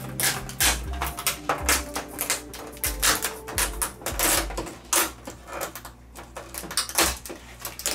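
LED backlight strips being pulled up off the back panel of an LG 65UJ6300 TV: a run of irregular clicks and snaps with light clatter.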